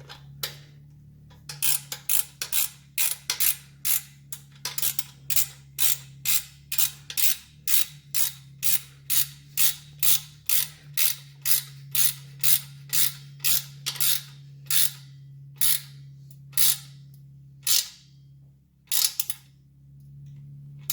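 Hand ratchet wrench worked back and forth on a nut or bolt, a short clicking rasp at about two strokes a second for some fifteen seconds, then a few slower strokes before it stops.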